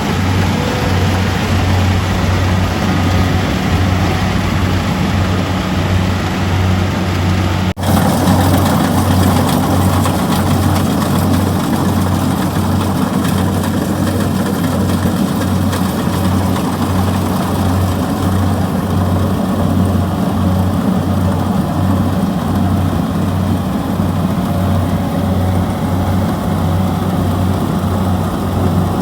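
Kubota DC-70G rice combine harvester's diesel engine running steadily under work, a constant low drone with an even pulsing beat. It breaks off for a split second about eight seconds in, then carries on.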